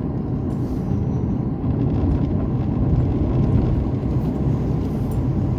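Steady road and engine noise of a vehicle being driven, heard from inside the cabin.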